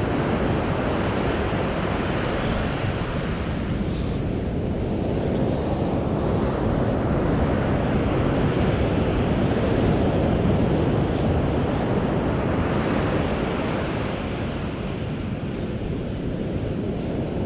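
Ocean surf breaking on a sandy beach: a steady rush of waves that slowly swells and eases, with wind on the microphone.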